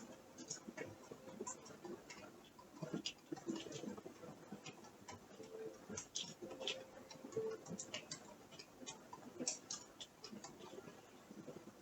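Faint, irregular creaking clicks, several a second, over a faint steady hum.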